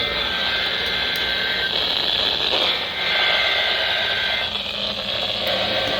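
NOAA Weather Radio SAME digital header: the shrill two-tone data screech sent in bursts of about two seconds with about a second's gap between them, two full bursts and the start of a third, heard off a weather radio receiver over steady static hiss. It is the coded header that opens a Weather Radio alert or test.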